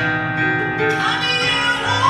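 Live song performance: singing over instrumental accompaniment.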